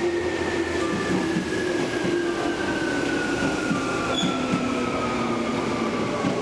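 Tobu 200 series electric limited express train running through a station: wheels knocking over rail joints beneath a steady whine that slowly falls in pitch.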